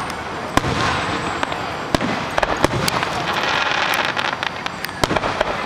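Fireworks show: a dense run of crackling with sharp bangs from bursting shells, the crackle swelling toward the middle.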